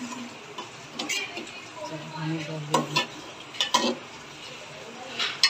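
Metal spoon stirring tinda and chicken curry in a metal pot, scraping and clinking against the pot several times, with the curry sizzling underneath.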